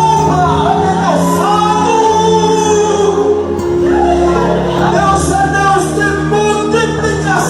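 Worship music in a church service: a singing voice over held, sustained chords.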